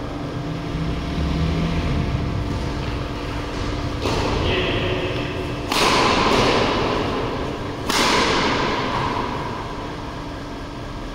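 Badminton play: several sharp hits about four, five and a half, six and eight seconds in. The two loudest are each followed by a swell of noise that fades over a second or two.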